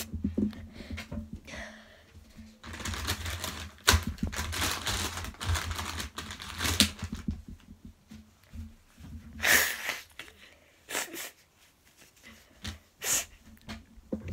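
Rubber eraser scrubbing back and forth on drawing paper, a dense scratchy rubbing for a few seconds with small clicks in it, followed by a few brief rustles and taps of handling.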